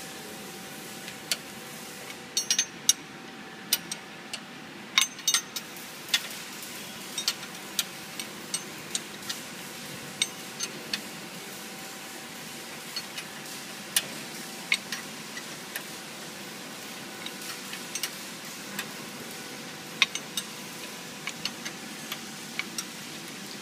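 Paper cup lid machine's mechanism running: a steady mechanical hum under sharp, irregular clicks and clacks, about two a second.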